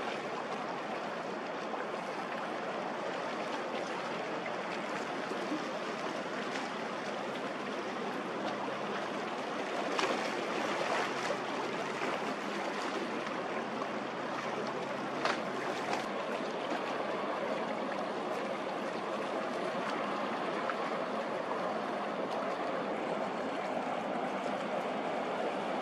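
Steady wash of water lapping along the shore as a large ship passes offshore, with a few short clicks about ten and fifteen seconds in.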